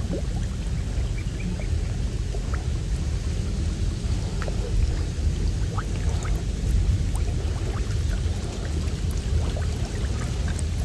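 Water dripping and splashing from a gill net as it is hauled up hand over hand out of a muddy channel, in scattered small drips and splashes, over a steady low rumble.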